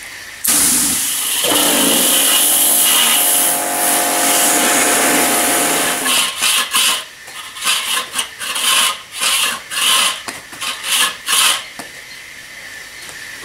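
Pressure washer spraying water into the bowl of a kettle grill: a loud hiss of spray with the washer's pump motor running underneath. From about six seconds in, it breaks into a string of short, separate bursts.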